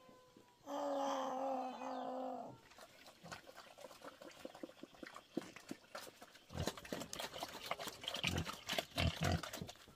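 An animal's drawn-out, steady call lasting about two seconds near the start, followed in the second half by scattered knocks and rustling.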